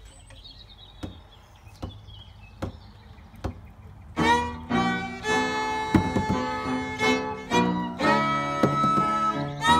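Four evenly spaced taps count in. About four seconds in, an Irish traditional band starts a tune together on fiddle, whistle, piano and bodhrán.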